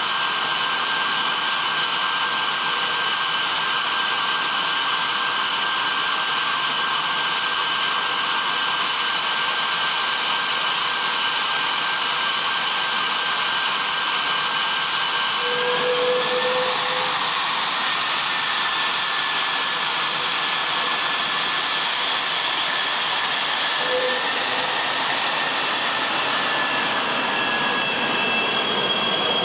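Jet engines of an F-22 Raptor whining steadily over a rushing noise, the whine stepping up slightly in pitch about sixteen seconds in.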